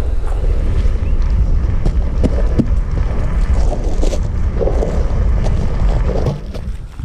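Deep, steady rumbling roar of a Kilauea fissure eruption, with scattered sharp crackles over it.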